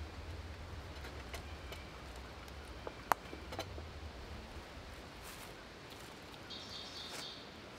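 Faint rustling and small clicks of outdoor gear being handled, with one sharp click about three seconds in, over a low rumble in the first half. A brief high chirp comes near the end.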